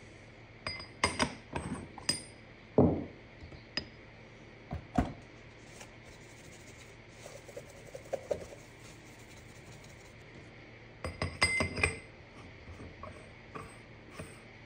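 Scattered clinks and knocks of small hard objects being handled, in two short clusters, with a heavier knock about three seconds in.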